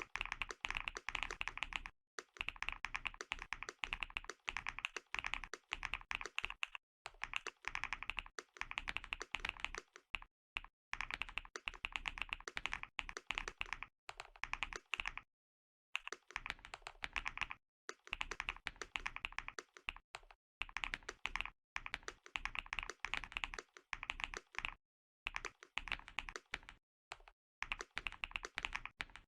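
Fast typing on a mechanical keyboard with C3 Tangerine linear switches: rapid keystroke clacks in runs of a few seconds, broken by short pauses.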